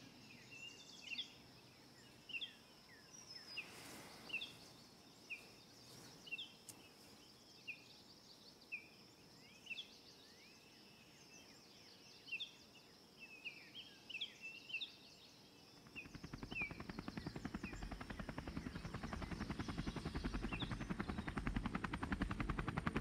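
Birds singing in short, scattered chirps over a quiet outdoor background. About sixteen seconds in, a fast, rhythmic beating fades in and grows steadily louder, taking over near the end.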